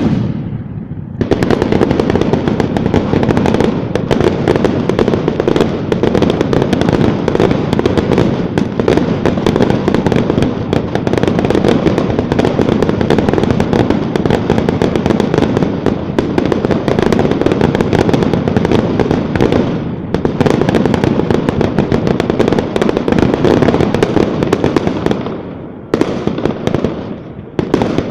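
Fireworks: a sudden loud bang, then a dense, unbroken barrage of bursts and crackle that runs for over twenty seconds and thins out near the end.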